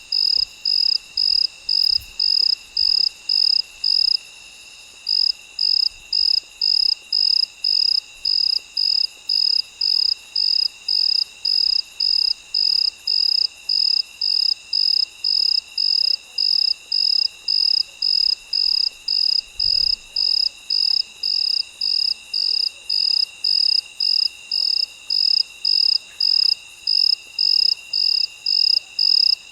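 Crickets chirping at night. One loud, high-pitched chirp repeats about twice a second, with a brief gap about four seconds in. Under it runs a steady, continuous high trill from other insects. The chirping stops right at the end.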